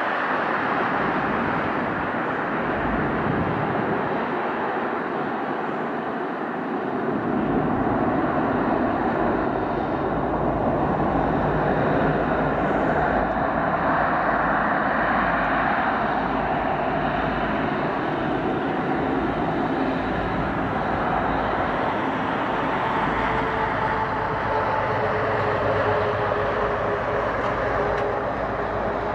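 Jet engines of a Boeing 777-200ER running at low taxi thrust as the airliner rolls past: a steady rumbling jet noise, with a faint steady whine coming in over the second half.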